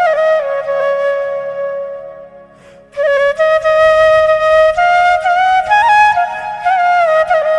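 Flute playing a folk-style melody with bends and ornaments on its held notes, as a ringtone. It fades away over the first few seconds and comes back in just before the three-second mark.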